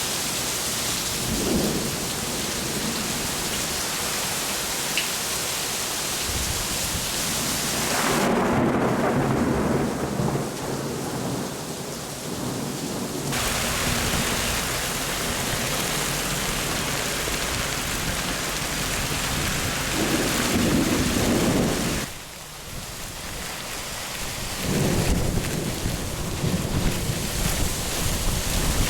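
Heavy rain pouring steadily, with several rolls of thunder rumbling through it.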